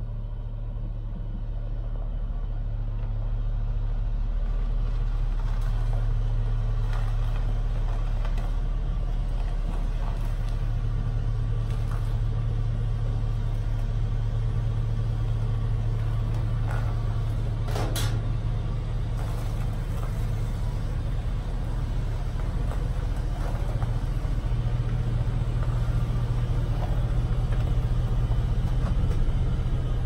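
Suburban SUV backing slowly into a garage: a steady low engine rumble that grows louder over the first few seconds as it draws near. There is a single sharp knock about eighteen seconds in.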